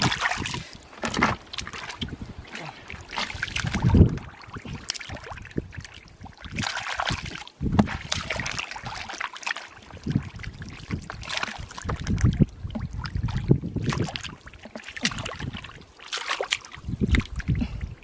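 Hands and bare feet working through wet mud and shallow water: irregular squelching and sloshing, with a louder thump about four seconds in.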